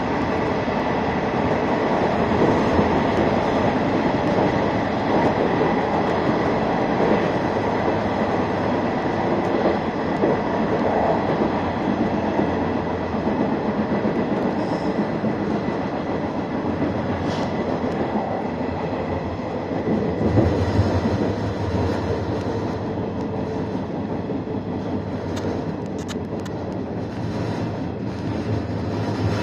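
JR West 113 series electric train heard from inside the driver's cab, running at speed with a steady rumble of wheels, motors and car body, a faint steady high tone above it. In the last several seconds the running noise eases as the train slows for a station, and a few short clicks come through.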